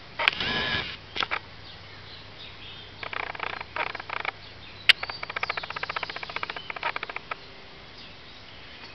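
Sábalo (Prochilodus lineatus) feeding at the water surface, its mouth sucking and slurping at the surface film. There are a few short wet slurps near the start and again around three to four seconds in, then a quick run of smacking clicks, about eight to ten a second, for a couple of seconds.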